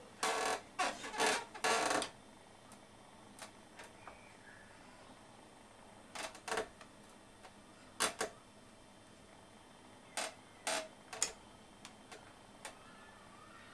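Edge of a homemade fillet knife, made from lawnmower-blade steel, drawn up and down along a brass rod under downward pressure: the brass-rod test of how well the edge has been hardened. A quick run of short scraping strokes in the first two seconds, then a few separate strokes and light clicks spaced out later.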